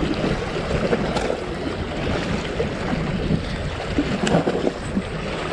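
Strong wind buffeting the microphone over waves breaking on a rocky shore: a steady, rumbling rush, with two short clicks.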